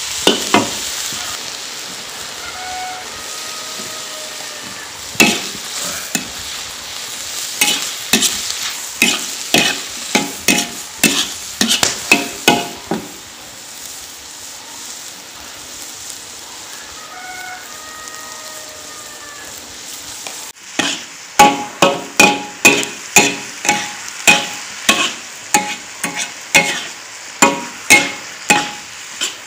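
Beef and green peppers sizzling in a large iron wok, with the spatula scraping and striking the wok in runs of strokes about two a second, first through the middle and again from about two-thirds of the way in; between the runs only the steady sizzle is heard.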